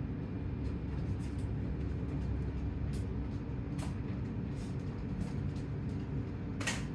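Faint clicks from a toy dart shotgun being handled and loaded, over a steady low rumble, with one sharper click near the end.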